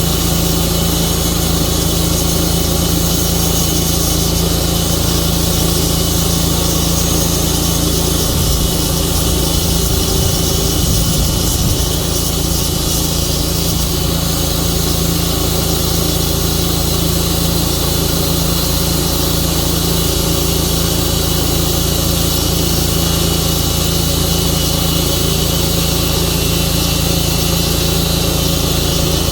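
Tru-Cut sawmill running steadily, its engine holding one even speed throughout.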